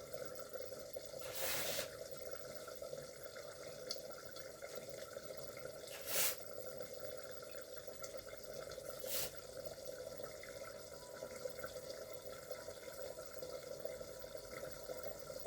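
Pot cooking on a stove, giving a steady simmering hiss, with three short, louder bursts of noise about a second and a half, six and nine seconds in.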